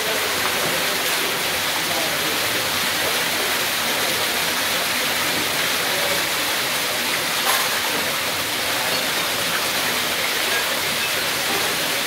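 Water of an indoor decorative waterfall falling in thin streams down a stone wall and over rocks into a pool, a steady even splashing.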